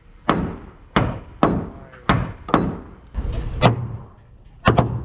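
Hammers striking a wooden schooner's hull planking as shipwrights drive the last plank into place: about eight sharp blows, roughly two a second, with a quick pair near the end.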